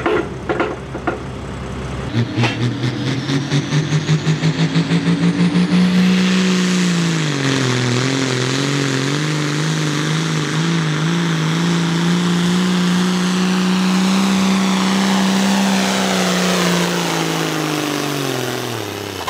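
Diesel pulling tractor engine at full throttle during a tractor pull: the engine note surges rapidly while climbing in pitch, then holds steady and high, and winds down in pitch over the last few seconds.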